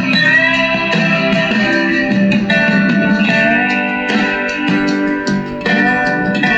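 Guitar music with a steady rhythm, played through the speaker of a repaired tube radio.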